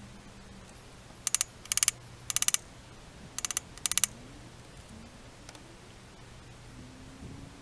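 Hand ratchet wrench clicking in five short bursts of quick clicks, spread over about three seconds starting a second in, as the handle is swung back between turns.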